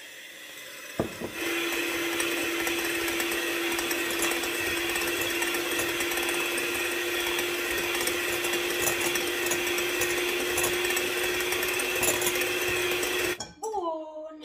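Electric mixer beating egg whites into meringue in a bowl: switched on with a click about a second in, running at a steady speed with an even hum, then switched off near the end.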